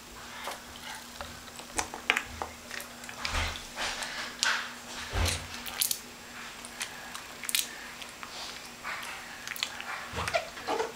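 Bathwater splashing and dripping as a toddler plays with a plastic toy fish in the tub, with scattered small splashes, knocks and a couple of low thumps.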